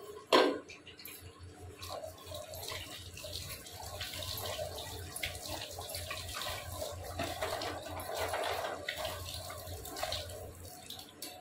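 A sharp metallic clank about half a second in, then water running and splashing for several seconds.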